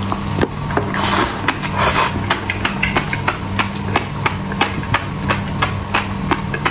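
Sharp, crisp clicks about three a second, typical of close-miked chewing of food such as fish roe and shrimp, with two short hissy bursts about a second and two seconds in. Underneath runs the steady low hum of a refrigerator left running.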